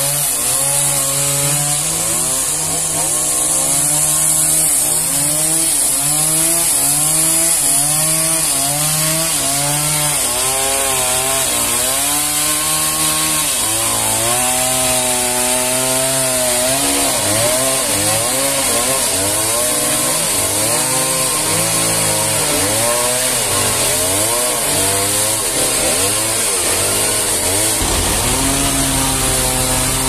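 Two-stroke gasoline chainsaw cutting into a large trembesi (rain tree) log. Its engine note keeps rising and dipping as the chain bites into the wood.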